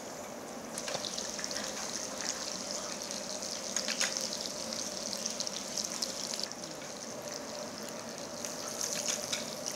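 Beef intestines sizzling in a pan on a tabletop burner: a steady hiss with a faint crackle and a few light clicks.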